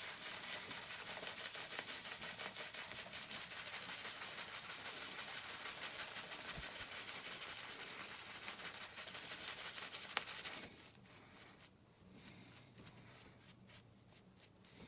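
Shaving brush working shaving-cream lather, a steady fine scratchy swishing that stops about eleven seconds in. The lather may still be a little too dry.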